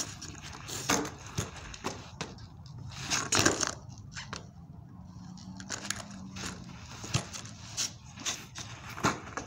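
Skateboard handled and stepped on over artificial turf: a series of short knocks, clacks and rattles from the deck and trucks, with shuffling footsteps on the turf. The loudest clatter comes about three and a half seconds in.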